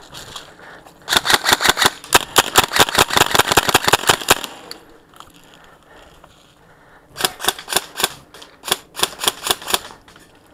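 Airsoft rifles firing in rapid strings of sharp cracks: one long string from about a second in until about four and a half seconds, and a second string in the last three seconds.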